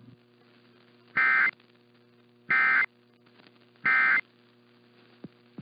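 Emergency Alert System end-of-message data tones: three short, identical bursts of raspy digital tone about a second and a half apart, marking the end of the relayed warning. A faint steady hum lies underneath.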